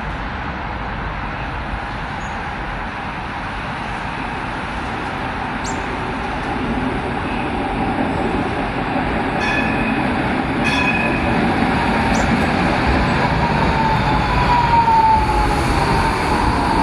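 Bombardier Flexity Classic light-rail tram approaching and pulling in, its steady rumble of wheels and running gear growing louder. Two short high tones come about a second apart midway, and a falling electric whine is heard over the last few seconds as it slows.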